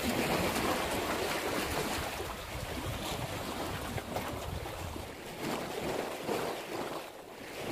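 Waves washing against the rocks of a seawall, with wind buffeting the microphone in uneven gusts.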